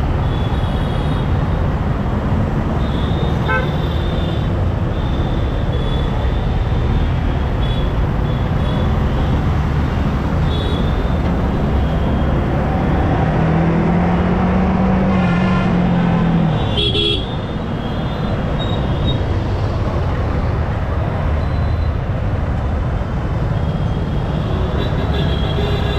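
Yamaha R15M motorcycle ridden through heavy city traffic: a steady rush of wind and engine noise, with vehicle horns honking now and then. About 13 seconds in, a long low horn blast sounds for roughly three seconds, cut off by a sharp click.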